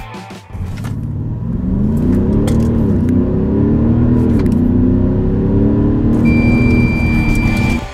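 Audi SQ7's 4.0 TDI V8 diesel at full throttle from a standstill, heard inside the cabin. The engine note climbs through the gears, with two brief dips at the automatic gearbox's upshifts. Near the end a steady high beep sounds for about a second and a half.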